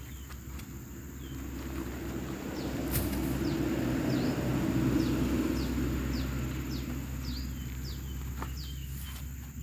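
A passing vehicle, swelling to its loudest about halfway through and fading away, over a steady high insect drone. A bird repeats short falling calls about twice a second.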